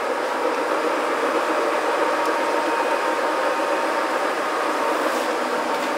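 Summit 24 x 80 manual engine lathe running: a steady mechanical whir from the headstock gearing and drive, with a faint steady whine.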